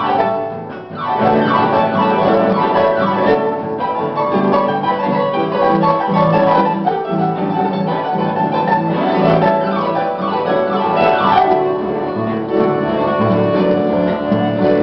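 Harp played in a lively folk tune with quick sweeping runs across the strings, accompanied by held accordion chords.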